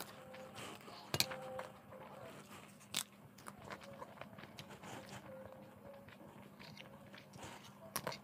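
Close-up crunching and chewing of crisp fried sabudana (sago) papad, with sharp bite cracks about a second in, about three seconds in and again near the end, and smaller crackles between.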